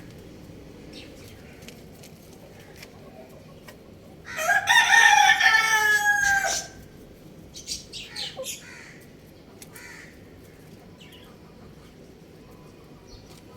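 Young rooster crowing once, a single call of about two and a half seconds that falls in pitch at its end, starting about four seconds in. A few short, quieter clucking calls follow it.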